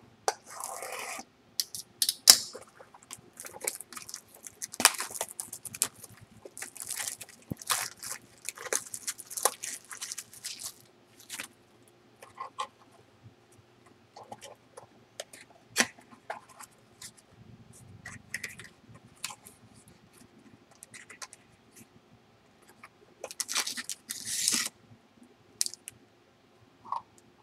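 Plastic shrink wrap crinkling and tearing and a cardboard mini box being pulled open and handled: scattered rustles and clicks, busiest in the first ten seconds and again near the end.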